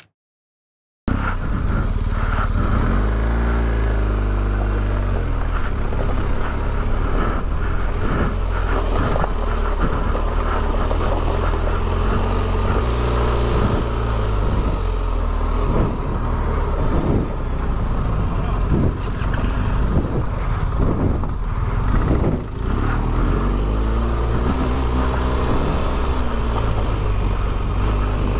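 A BMW R 1250 GS's boxer-twin engine running while the motorcycle is ridden on a dirt road, the revs rising and falling with the throttle, under a steady rush of wind noise. The sound starts suddenly about a second in.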